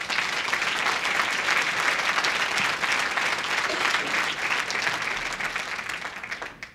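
Audience applauding: many people clapping steadily, easing off near the end and stopping.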